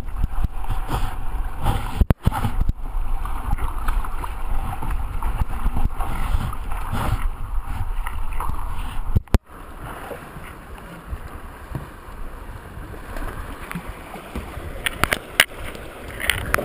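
Fast river water rushing and splashing right against an action camera riding at the waterline, heavy and rumbling, with brief cut-outs when the camera dips under. After about nine seconds it turns noticeably quieter. The sound of a swimmer in whitewater beside a capsized kayak.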